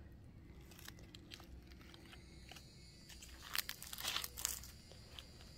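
Faint footsteps crunching over grass and dry leaves, a short run of crackling steps between about three and a half and four and a half seconds in.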